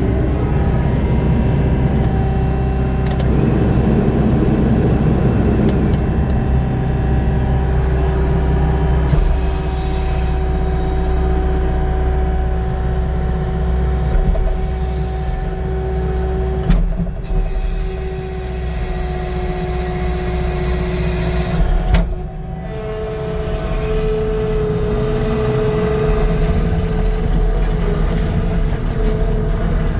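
A New Holland L228 skid steer's diesel engine running steadily with a hydraulic whine, the whine changing pitch a few times as the machine is worked, with a couple of brief knocks.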